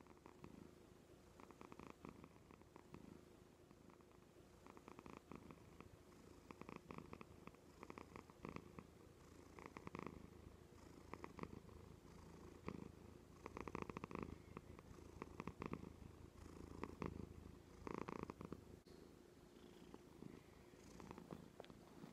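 Domestic cat purring softly, the purr swelling and fading with each breath and growing louder in the middle.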